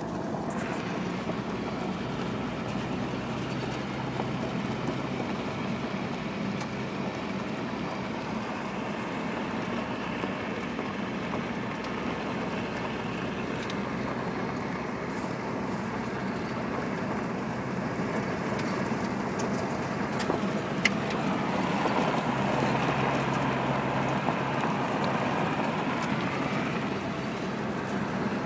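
Steady road noise of a moving vehicle heard from inside the cabin: engine and tyres running, swelling somewhat about three-quarters of the way through, with one brief tick.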